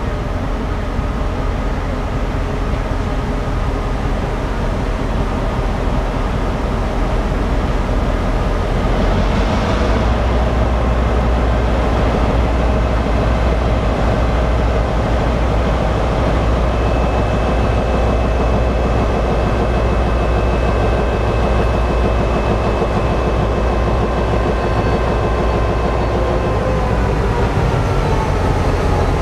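Diesel locomotive running with its train, a steady low engine rumble that grows louder about ten seconds in. A thin steady whine sits above it in the later part.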